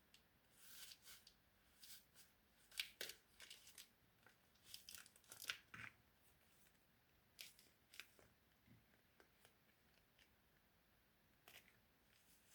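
Faint, scattered crinkles, tearing and snips of craft materials being handled and cut by hand, in short irregular bursts that are busiest in the first half.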